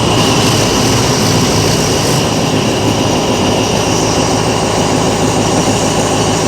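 Diesel locomotive of a passenger train running steadily under power, a continuous loud engine drone.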